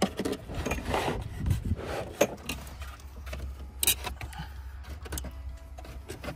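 Metal tools clinking and plastic rattling as sockets are handled in a plastic socket-organiser drawer, then scattered clicks and scrapes of hands working at a car's shift boot and console trim.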